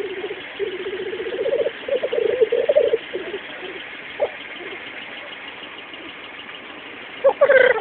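Black grouse cock bubbling: a pulsing, cooing run of low notes that swells over the first three seconds. A louder short call comes near the end.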